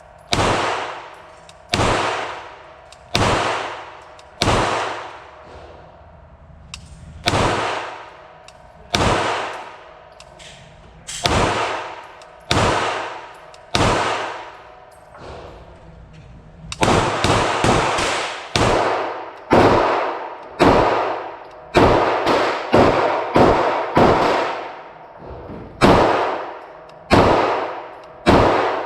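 A 9mm pistol in a Meta Tactical MX-1 carbine conversion chassis firing 115-grain FMJ rounds, each shot with a ringing tail. At first the shots come about one every second or so, with two short pauses. From about two-thirds of the way in they come in a quicker string, sometimes two or three a second.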